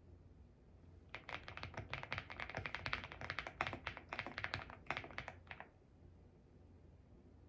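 Mechanical keyboard being typed on quickly: a burst of rapid key clicks that starts about a second in and stops after about four and a half seconds.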